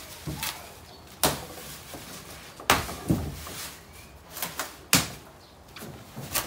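Bubble-wrap packaging rustling and crackling as it is pulled off a plastic kayak, with a few sharp cracks along the way.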